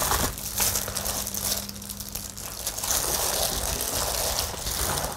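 Salted napa cabbage being tossed by hand with wet kimchi seasoning paste (red pepper flakes, fish sauce, garlic): a continuous noisy rustling, a little louder from about three seconds in.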